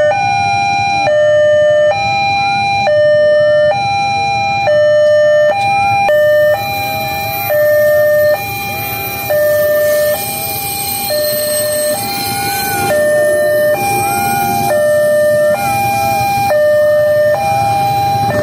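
Railway level-crossing warning alarm sounding an electronic two-tone hi-lo signal, switching between two pitches just under once a second, warning that a train is approaching or passing. From about six seconds in, the rushing noise of the passing train joins underneath.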